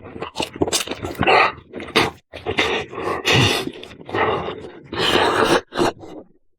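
Close-miked eating sounds: irregular wet chewing and mouth smacking, with short bursts one after another, stopping just before the end.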